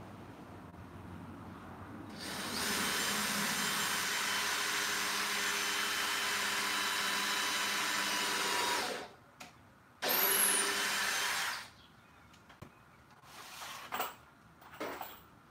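Power drill running on the wooden platform frame: one long steady run of about six seconds, then a shorter run of about a second and a half, followed by a couple of sharp clicks near the end.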